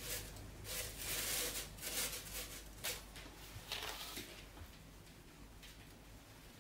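Thin plastic cover over a glass mixing bowl crinkling and rustling under a hand in a string of short bursts, stopping about four seconds in.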